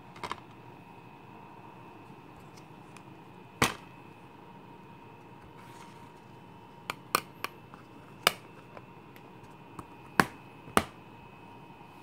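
Plastic DVD keep case being handled: a series of sharp clicks and snaps as the case is opened, the disc is pulled off its hub and the case is shut, the loudest near four, eight and eleven seconds in. Under them a faint steady hiss and high hum.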